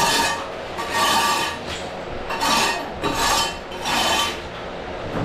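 Rhythmic rasping, scraping strokes, five of them about a second apart, each well under a second long.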